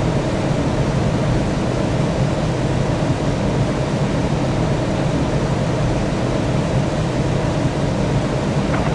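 Steady jet airliner noise: a constant low rumble with an even rushing hiss over it, unchanging throughout.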